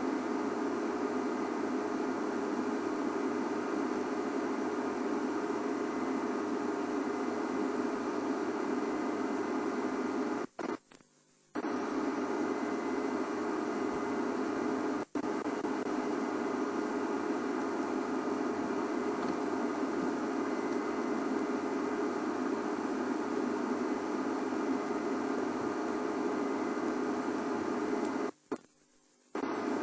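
Steady static-like hiss and hum that cuts out twice for about a second at a time.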